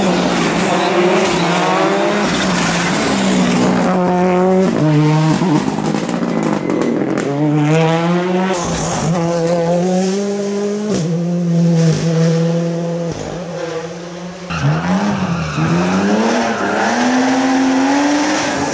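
Rally cars driven flat out through stage corners one after another. Their engines rev up and drop back in steps at each gear change, with some tyre squeal.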